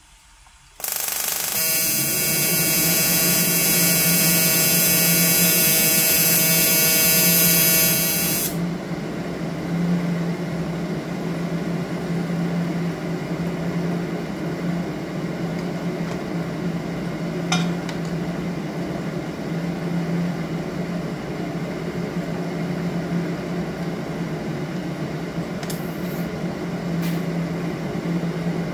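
TIG welding arc buzzing on a reservoir part, starting about a second in and cutting off sharply after about seven seconds. A steady, quieter hum carries on after the arc stops.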